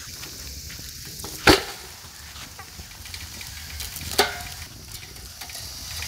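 Wet mud being pressed and patted by hand onto a lotus-leaf-wrapped chicken for beggar's chicken, with two sharp knocks, one about a second and a half in and one about four seconds in, the second with a brief ring.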